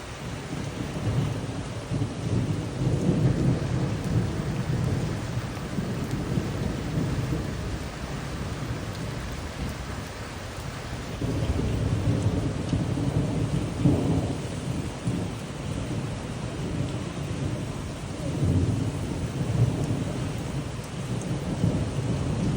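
Steady rain falling, a constant hiss, with low rumbling that swells and fades three times.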